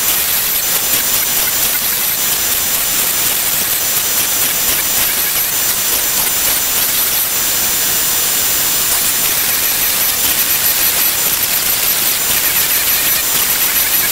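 Shapeoko XXL CNC router with a palm-router spindle, running at high speed as its bit cuts pockets into Baltic birch plywood: a steady high-pitched whine over a dense cutting hiss.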